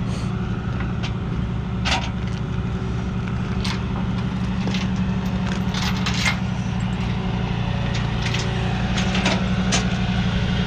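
Flatbed tow truck's engine idling steadily, with scattered sharp clicks and clanks from the tie-downs as the loaded van is secured to the bed.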